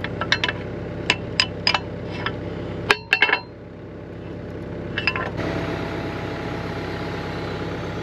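Mini excavator's diesel engine idling steadily, while steel tools and parts clink and tap against the thumb cylinder pin and its bracket: about a dozen sharp metallic clinks in the first three seconds, then only the idle.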